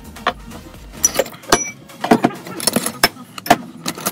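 Small metal tools and pieces clinking and tapping on a jeweller's bench: a quick irregular run of sharp clicks, some with a brief high metallic ring. A low hum stops about a second in.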